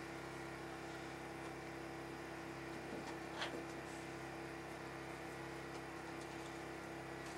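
Faint steady hum of room tone, with one light click about three and a half seconds in.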